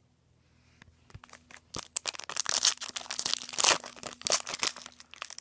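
Crinkling and rustling of a trading card pack's wrapper being handled. It starts about two seconds in, after near quiet with a few light clicks.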